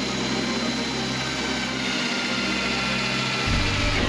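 Cordless drill running steadily under load against the wooden side of a box, its motor whine dropping a little in pitch as it works.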